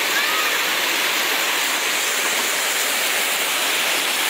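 Water from a mini-golf course's artificial stream pouring and splashing steadily over rocks.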